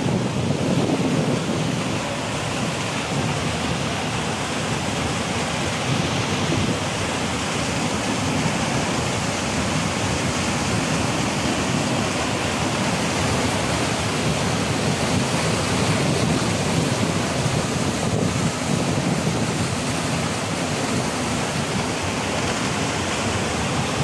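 Basaseachi Falls in heavy rainy-season flow: a steady, unbroken rush of water pouring over the rock lip, heard from right beside the top of the fall.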